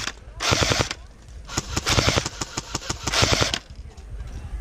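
Airsoft electric guns firing in three bursts of rapid shots, each lasting up to about a second.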